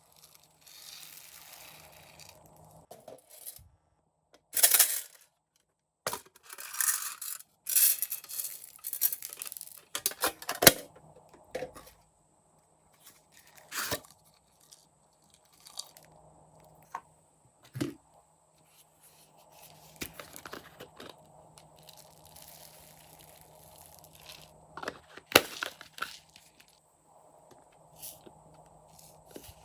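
Slime being stretched, squeezed and mixed by hand, making irregular sticky crackles and sharp pops in uneven bursts with short pauses between them.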